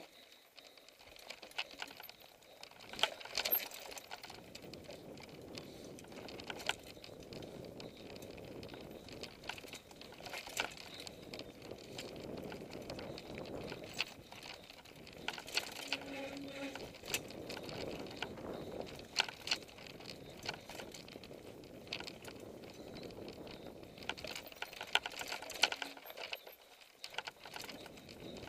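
Mountain bike riding down a dirt forest trail: tyres rolling over the soil with frequent sharp clacks and rattles from the bike as it hits bumps and roots.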